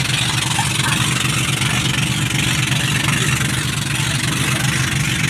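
Engine of a motorized outrigger passenger boat (bangka) running steadily, a constant low drone with a steady hiss over it.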